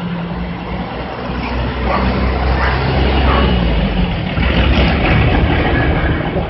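Street traffic: motor-vehicle engines running close by with a deep rumble, growing a little louder about two seconds in.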